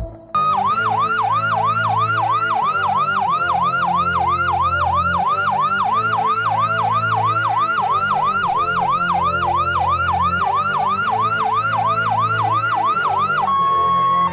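Electronic ambulance siren in a fast yelp, its pitch rising and falling about three times a second, over low background music; the siren stops shortly before the end.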